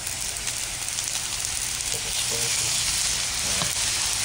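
Pre-cooked rice frying in oil, butter and soy sauce on a hot Blackstone flat-top griddle: a steady sizzle that gets a little louder from a little past halfway.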